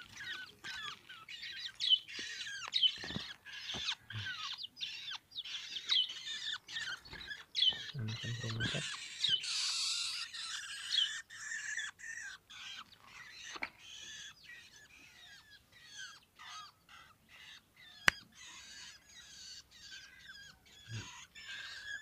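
Chicken chicks peeping: a run of short, high, clear peeps, many falling in pitch, a few each second. A rustle and a couple of low knocks come about halfway through, and a single sharp click later on.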